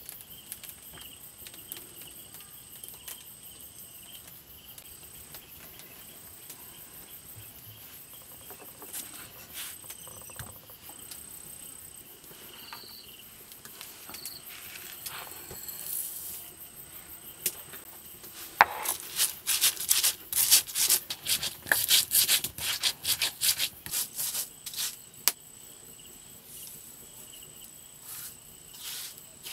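A round hand stone knocking and rubbing on a flat silauto grinding stone as spices are crushed, rapid sharp knocks for several seconds past the middle. Steady insect chirping runs underneath.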